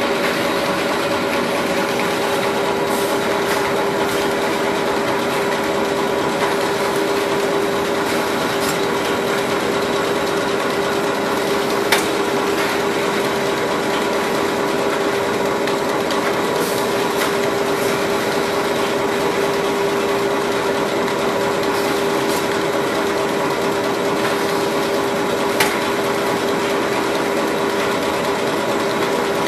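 A4 paper rotary cutting machine running steadily, a constant mechanical hum with one held mid-pitched tone as its belts and rollers carry the paper through. A few short sharp clicks stand out, one about twelve seconds in and one near the end.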